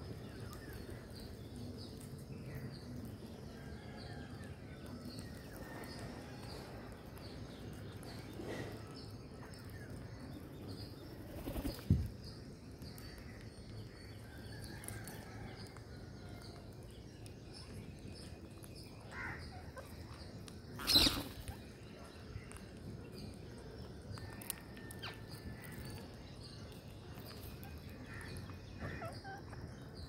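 Rose-ringed parakeets flapping their wings as they fly to and from a seed-covered wall, with two loud flurries of wingbeats, about a third of the way in and about two-thirds in, over faint chirps.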